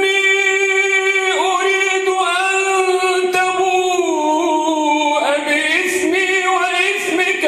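Male Quran reciter chanting in a drawn-out, melodic tajweed style: one voice holding a long note, then turning through ornamented pitch glides in the second half.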